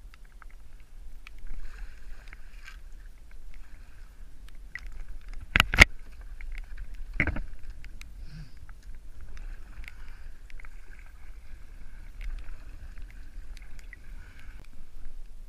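Paddling a kayak: the paddle blades dip and swish through the water steadily, with a few sharp knocks about five and a half and seven seconds in.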